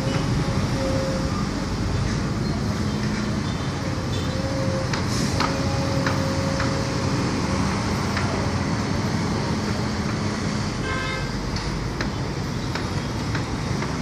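Steady road traffic and engine noise with a constant engine hum, a few sharp knocks, and a short horn-like toot about eleven seconds in.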